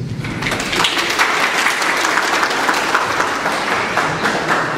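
Audience applauding in a hall: many people clapping steadily, in response to the end of a speech.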